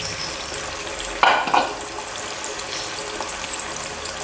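Spiced chili broth with red beans simmering and sizzling in a wok, a steady bubbling hiss, with a short louder burst of noise about a second and a quarter in.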